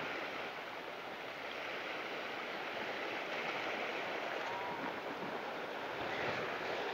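Ocean surf washing over the shoreline rocks, a steady hiss of moving water.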